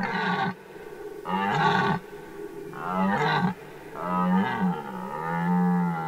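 Red deer stag roaring in the rut: a series of about five hoarse roars, the last and longest lasting about a second and a half. It is the stag's rutting call, announcing his dominance to rivals.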